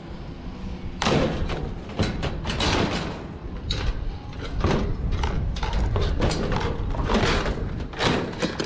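Kerbside scrap being handled and loaded: an irregular run of knocks, thuds and clatter, starting about a second in and going on throughout, over a low rumble.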